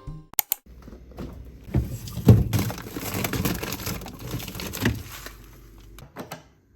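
Scattered knocks and clicks over a low rustling noise, the loudest knock about two seconds in.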